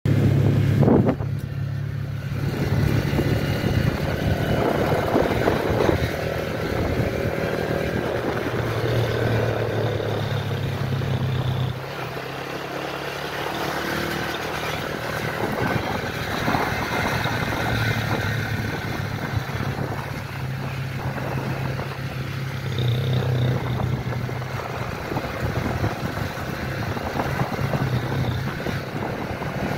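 Motorcycle engine running steadily under way, with wind noise rushing over the phone's microphone; the engine note eases off about twelve seconds in.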